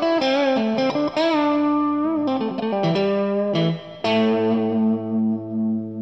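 Intro theme music: a run of quick notes, some of them wavering, settling into a held chord about four seconds in.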